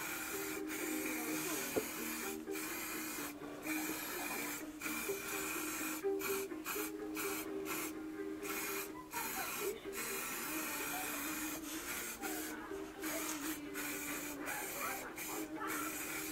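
Aerosol spray can hissing as it is sprayed onto a car's underbody, in many short bursts with brief breaks between them.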